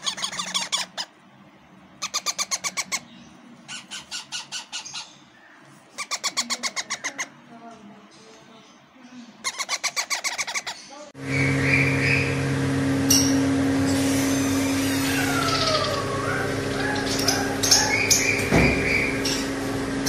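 Parakeet chicks giving bursts of rapid, chattering begging calls, each burst about a second long, repeated every couple of seconds. About eleven seconds in, the sound switches to a steady machine hum with the chirps and whistles of caged parrots.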